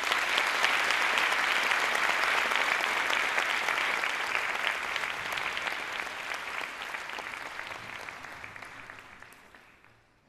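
Audience applauding, strong at once and dying away over the last three seconds or so.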